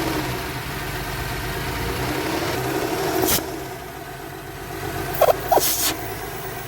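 Porsche Cayenne VR6 engine idling with a vibration and unsteady revs, a fault the mechanic traces to a blocked PCV valve built into the valve cover. A brief louder noise comes about three seconds in, and a few short sharp sounds near the end.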